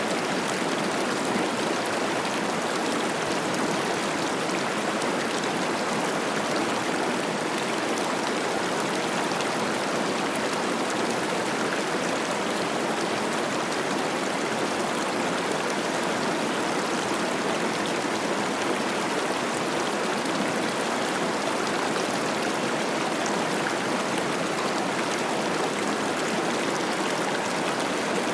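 Cache la Poudre River running high with spring snowmelt: a steady rush of babbling, splashing water that does not let up.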